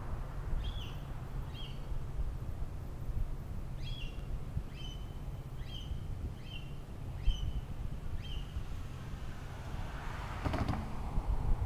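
A bird calling a run of short, high chirps, one or two a second, with a pause after the first two. A car passes about ten seconds in, over steady wind rumble on the microphone.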